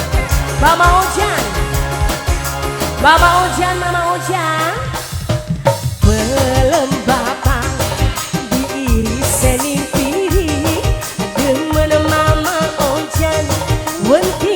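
Live tarling-dangdut band music: a melody that slides and bends in pitch over a steady drum beat. About four seconds in, the bass and drums drop out for a moment and come back with a strong hit about six seconds in.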